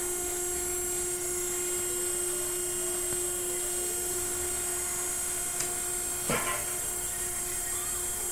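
Large tyre changer's motor running steadily on test after repair: a constant hum with a clear whine. There is a short tick about five and a half seconds in, and a brief louder sound about a second after it.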